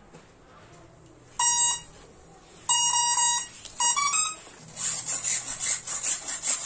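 Electronic start-up beeps from the plane's brushless ESC sounding through the motor as it is powered: one beep, a short run of beeps, then a quick rising three-note figure. About five seconds in, the aileron servos start buzzing and whirring with a fast, rough pulsing as the surfaces are worked back and forth.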